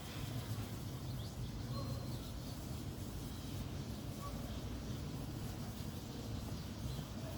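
A few faint, brief chirps from pet lovebirds over a steady low rumble.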